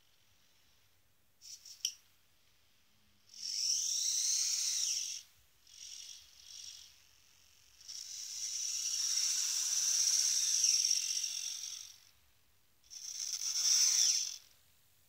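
Hobby servo motors in a robot arm whining in bursts as the joints move: a brief clicking first, then a burst of about two seconds, two short ones, a long one of about four seconds and a final one of about a second and a half, the pitch sweeping up and down within each.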